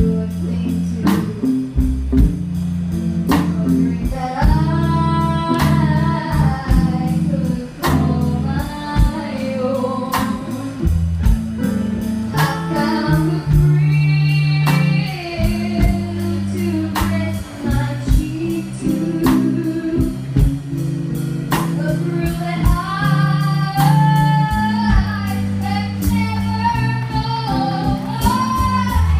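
Live blues band with a woman singing over electric guitars, bass and drums. The drums keep a slow, steady beat, and the voice comes in long held phrases.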